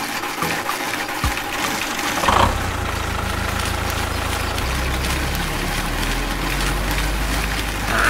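Small electric motor of a toy tractor driving the spinning spiral-coil reel of its harvester header, a steady whirring. About two seconds in there is a short louder burst of noise and a deeper hum sets in and carries on.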